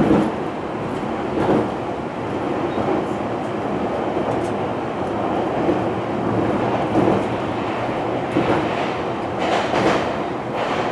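Running noise heard from inside a JR E257-500 series electric train's motor car in a tunnel: a steady rumble of wheels on rail, with a few sharp clicks from the track here and there.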